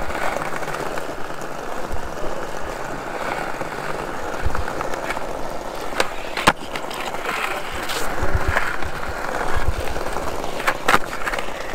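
Skateboard rolling over a block-paved path, a steady rumbling clatter from the wheels. About six seconds in, a sharp pop and a clack half a second later as the board is kicked into a trick and landed, and two more sharp clacks near the end.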